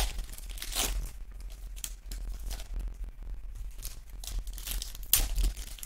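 Plastic wrapper of a pack of football trading cards crinkling as hands tear it open, in separate crackling bursts, the loudest at the start, about a second in and around five seconds in.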